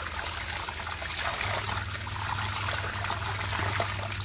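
A stream of water pouring and splashing into a metal pan of fish pieces while hands rub and wash them, running steadily, with a low hum underneath.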